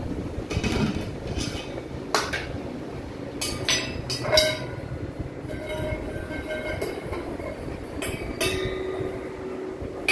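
Metal cooking pots, a steel plate and spoons clinking and clanging irregularly as a toddler handles them, several strikes leaving a short metallic ring. A steady low rumble runs underneath.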